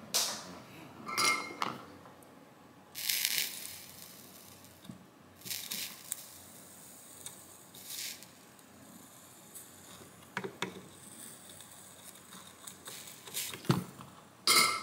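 Scattered light clicks, taps and clinks of a soldering iron and desoldering braid worked against a circuit board's solder joints, with a few short hisses. A sharper ringing clink comes about a second in and again just before the end.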